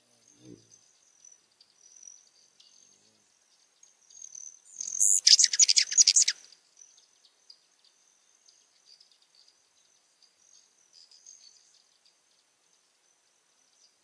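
A hummingbird's burst of rapid, high chattering chips about five seconds in, lasting a second and a half, over a faint steady high-pitched whine.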